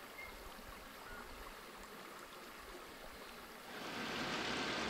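Steady rush of flowing water, growing louder and brighter about four seconds in.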